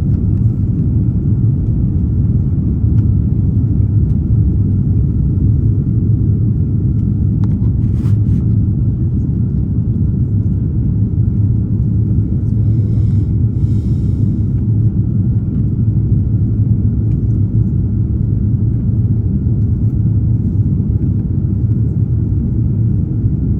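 Steady low rumble of airliner cabin noise inside an Airbus A330neo, from its Rolls-Royce Trent 7000 engines and the airflow, heard from the passenger cabin. A brief click comes about eight seconds in, and a short, faint higher sound about halfway through.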